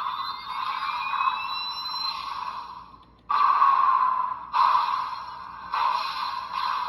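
Electronic sound effects from the small built-in speaker of a DX Memorial Gotcha Igniter toy. Rising whooshing tones come first, then a short drop-out, then three sudden blasts that each fade away.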